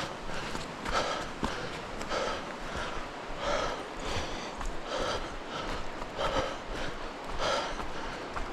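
A hiker's footsteps on a wet trail, a soft step about every two-thirds of a second, over a steady hiss.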